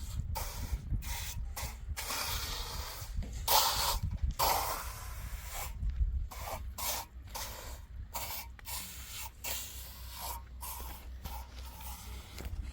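Repeated rasping, scraping strokes, each a fraction of a second to about a second long and some longer, over a steady low rumble.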